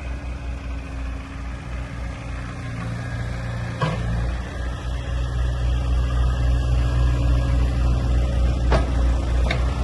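Caterpillar 304C mini excavator's diesel engine running steadily under hydraulic load while the upper structure swings through a full revolution. It gets slightly louder about four seconds in, and there is a short sharp click then and another near the end.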